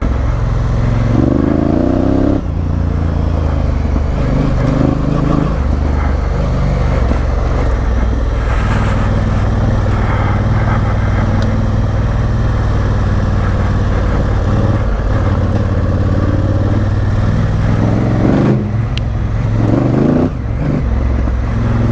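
Honda Africa Twin CRF1000L's parallel-twin engine and exhaust running under way off-road. The revs rise briefly about a second in and again near the end as the throttle is opened.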